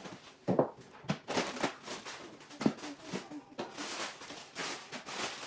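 Rustling and light knocking of pantry packages and containers being handled, in an irregular run of short sounds.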